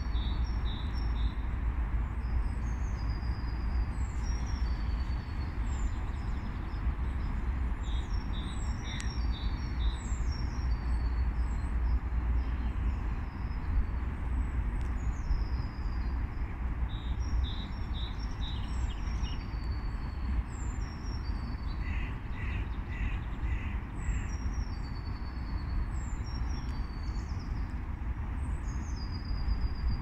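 Spring birdsong: small songbirds repeat quick, high, downward-sliding notes throughout, and short clusters of clipped notes come now and then. Near three-quarters of the way through, a bird gives a run of about five lower calls. A steady low rumble runs underneath.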